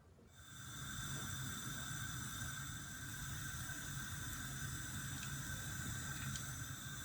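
Oil heating in a pan on the stove: a faint, steady hiss with a low hum, starting about half a second in.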